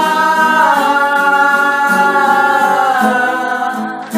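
A sung note held long over sustained backing chords, the melody stepping down in pitch about a second in and again near the end.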